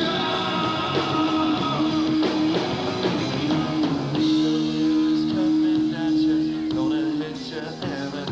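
Rock music: guitar and drums in an instrumental passage, with long held guitar notes, one sustained for about three seconds midway.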